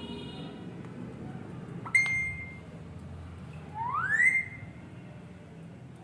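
Alexandrine parakeet giving two clear whistled calls: a sudden short whistle about two seconds in, then a rising whistle about four seconds in.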